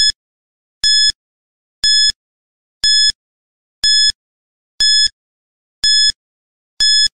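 Countdown timer sound effect: a short, high-pitched electronic beep once a second, about eight beeps in all, with silence between them.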